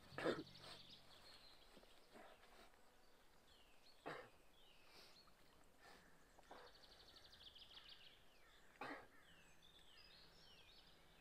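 Faint wild birdsong: scattered short chirps and, about two-thirds of the way in, a quick trill. Three soft knocks sound about four seconds apart.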